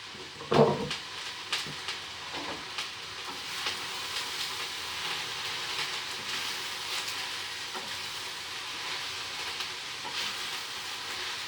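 Stir-fry vegetables, including freshly added shredded cabbage, sizzling in hot oil in a frying pan: a steady frying hiss with a few light crackles.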